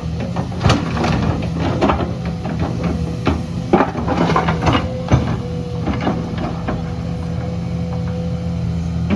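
Heavy tracked earthmoving machine running steadily at work, its diesel engine droning under repeated irregular metallic clanks and knocks from the tracks and digging gear.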